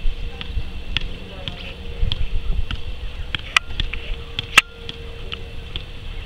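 Soccer ball being kept up with the feet: a short tap at each touch, about one every half second, the sharpest about two-thirds of the way through, over a steady high-pitched buzz.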